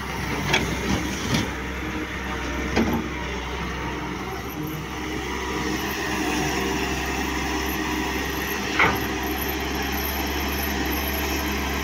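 Doosan wheeled excavator's diesel engine running steadily, with a few sharp knocks as the bucket dumps soil into a tractor trolley and digs.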